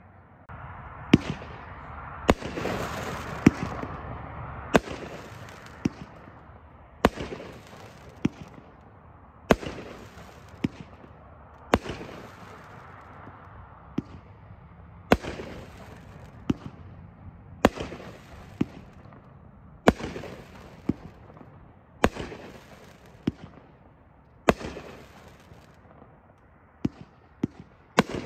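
500-gram Pyro Demon repeater cake firing aerial shots about once a second, each a sharp bang. A crackling hiss fills the first few seconds, and a quicker run of pops comes near the end.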